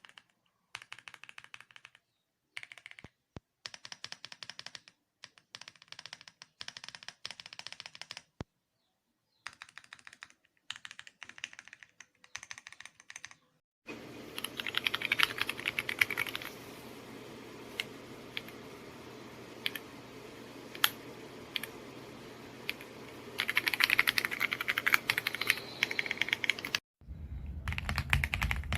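Typing on a Royal Kludge RK R75 mechanical keyboard: rapid key clicks in short runs separated by silent gaps. About halfway through, the typing becomes continuous over a steady background hiss and hum, with two louder, denser flurries of keystrokes.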